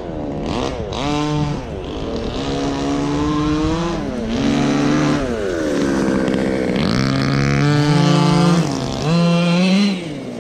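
Small two-stroke petrol engine of a 1/5-scale gas RC truck revving up and down as it is driven. The pitch rises and falls with each burst of throttle.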